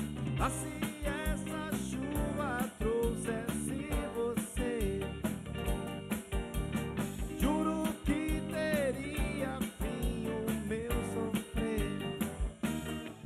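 A live rock band playing: drum kit, electric bass and electric guitars. A melody slides up and down over a steady kick-drum beat.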